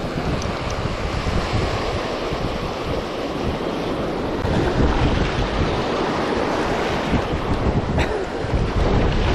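Sea surf washing onto a beach, with wind buffeting the microphone: a steady rushing noise under a gusty low rumble.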